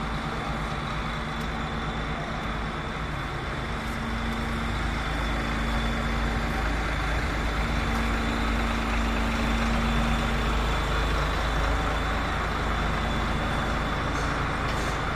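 Truck engine idling steadily: a continuous low, even rumble.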